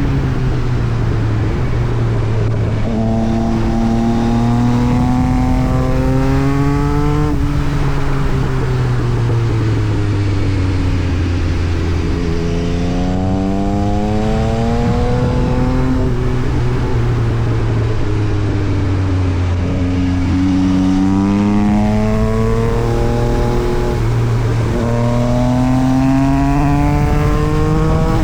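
Yamaha MT-09 SP's inline three-cylinder engine through an Austin Racing exhaust, its pitch rising slowly under throttle and falling back again about four times.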